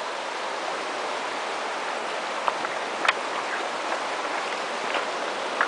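River water rushing over a shallow stony riffle, a steady hiss, with a few faint clicks over it.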